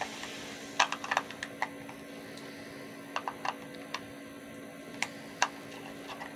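Light plastic clicks and taps, about a dozen at irregular intervals, as a plastic doll stand is handled and worked loose or fitted together.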